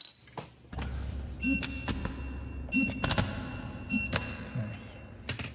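Digital click-type torque wrench beeping three times as each wheel bolt is brought up to the set torque, with a few clicks and knocks of the wrench on the bolts.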